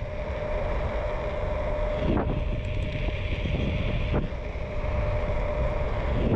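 Wind buffeting the microphone and road noise from a TurboAnt V8 electric scooter cruising steadily at about 20 mph, with the motor's steady whine running through it.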